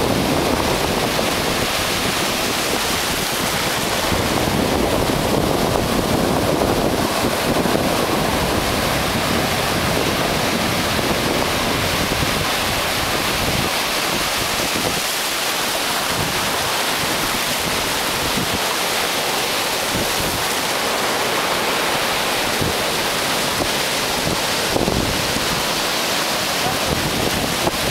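Ocean surf breaking and washing over the shallows in a steady rush, with wind buffeting the microphone in low rumbles.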